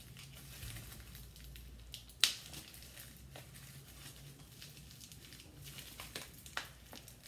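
Bubble wrap and plastic packaging being handled and pulled at: faint scattered crinkles and small clicks, with one sharp click about two seconds in.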